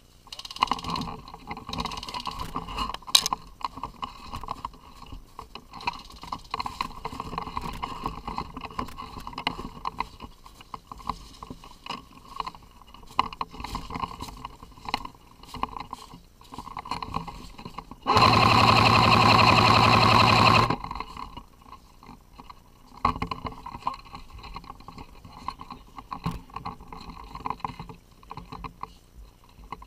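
Rustling and clicking from a player moving over dry leaves and snow. About two thirds of the way in comes one loud continuous burst, about two and a half seconds long, from an AK-style airsoft rifle firing on full auto. It starts and stops sharply.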